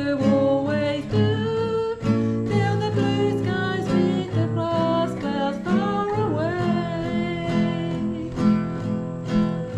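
Acoustic guitar being strummed in a steady, repeating rhythm.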